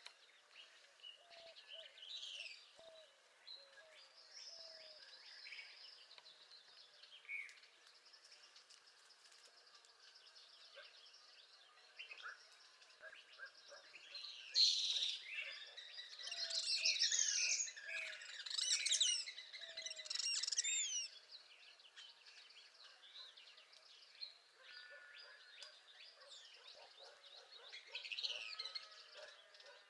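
Several songbirds singing at once: overlapping chirps, trills and quick rising and falling whistles, busiest and loudest for several seconds in the middle, with a faint low whistle repeating underneath.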